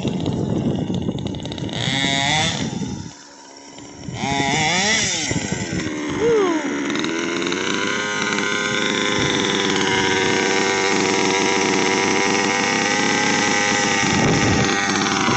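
Small two-stroke engine of a gas-powered 1/5-scale RC buggy revving up and down as it drives, dropping away briefly about three seconds in, then revving again and settling into a steady idle close by for the second half.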